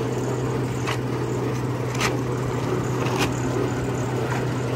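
Electric motor of a black-pepper processing machine running steadily with a low hum. A plastic sack rustles briefly a few times.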